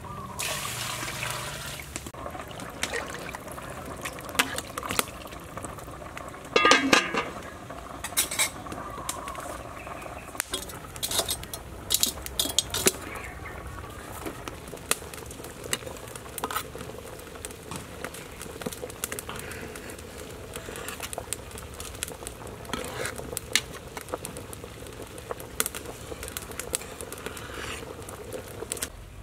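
Water poured from a plastic bucket into a large metal cooking pot, then repeated clinks and knocks of metal pots and utensils, with one loud clatter about seven seconds in. From about halfway, water boils steadily in the pot over a wood fire.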